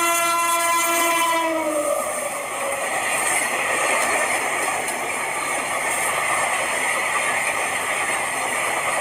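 A train horn blows one steady note for about two seconds, falling in pitch as it dies away, then the steady rushing noise of a passenger train running along the track.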